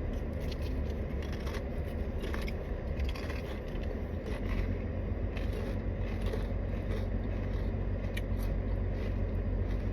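Someone chewing a crunchy spicy tortilla chip, with irregular crisp crunches, over the steady low rumble of a car on the road.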